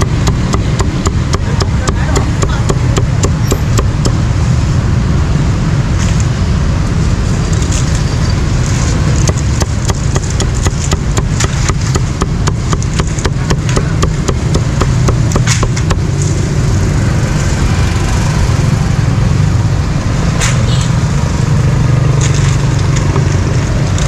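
Meat cleaver chopping on a chopping block in quick, sharp strokes, thickest through the middle of the stretch. Under it runs a steady rumble of street traffic.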